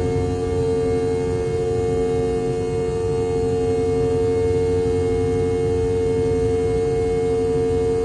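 Rolls-Royce BR715 turbofan engine of a Boeing 717, heard from the rear cabin beside the tail-mounted engines: a steady whine over a low rumble.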